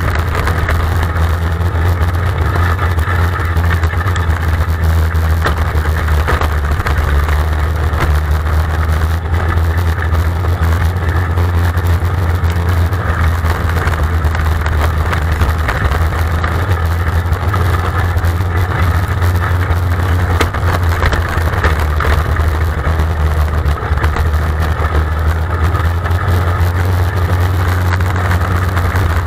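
Onboard sound of a small open-wheel dirt-track race car's engine running hard and fairly steadily at racing speed, with little change in pitch.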